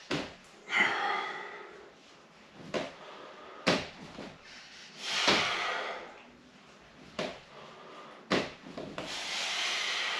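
TRX suspension straps and their buckles clicking and rubbing under load during repeated straight-arm pulldowns, with three forceful exhaled breaths about four seconds apart.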